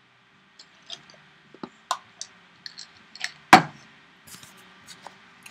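Scattered light clicks and taps from things being handled at a desk, irregular rather than rhythmic, with one louder knock about three and a half seconds in.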